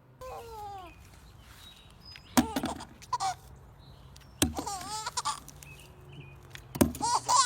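A baby's short, high-pitched squeals and shrieks. A falling squeal comes near the start, then louder, sharp-edged squeals about two and a half, four and a half and seven seconds in.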